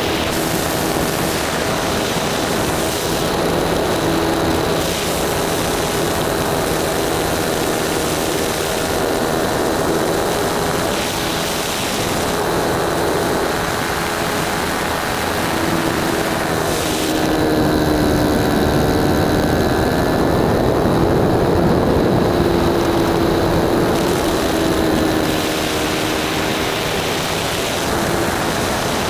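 Single-cylinder nitro glow engine of a 120-size RC sport plane running in flight with its propeller, heard from right behind the engine over a steady rush of air. The engine note holds steady, then gets a little louder and its pitch wavers up and down in the second half.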